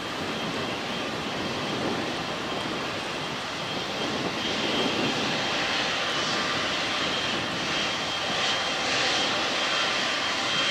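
Boeing 777-200F freighter's GE90 turbofans running at taxi power: a steady jet rush with a thin high whine that grows louder about halfway through as the aircraft turns toward the listener.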